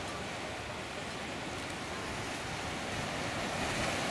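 Steady rushing noise of wind and surf, with gusts buffeting the microphone at the low end.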